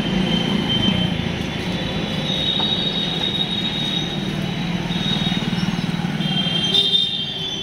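Busy street din: motorbike and scooter engines running among a crowd, with a steady high-pitched tone over the traffic that gets louder near the end.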